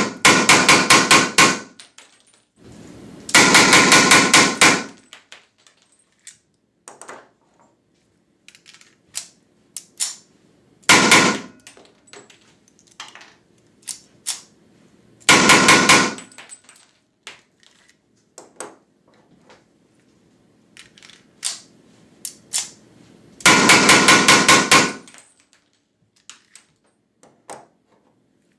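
Weihrauch HW94 9 mm P.A.K. blank pistol fired in rapid strings of shots with SK Schönebeck blanks, muzzle held in a foil-wrapped box. There are five quick volleys of several shots each, the longest about eight shots in a second and a half, with small metallic clicks of handling and reloading between them.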